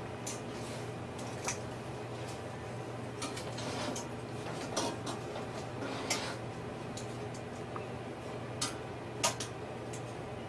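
Scattered light clicks and taps with faint rustling as a cat paws and noses at hard crab shells in a plastic-lined foam box, over a steady low hum.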